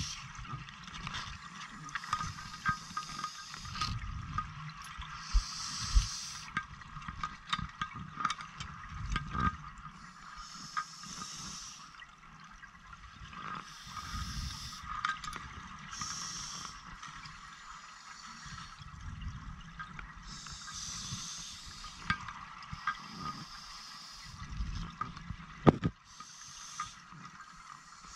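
A scuba diver breathing underwater through a regulator: a hiss of air comes about every five or six seconds, with bubbling and clicking between. There is a single sharp knock near the end.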